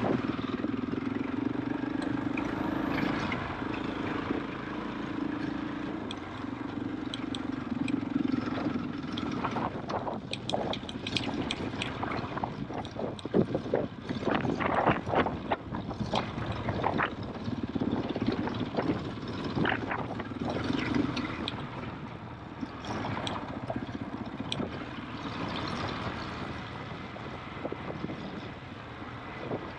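KTM 500 EXC-F trail bike's single-cylinder four-stroke engine running, its note stronger at the start and near the end. Through the middle there are many sharp knocks and clatter as the bike rides over the stony track.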